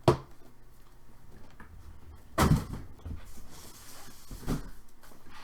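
Handling knocks: a sharp click at the start, a heavier thump about two and a half seconds in, and a lighter knock near the end.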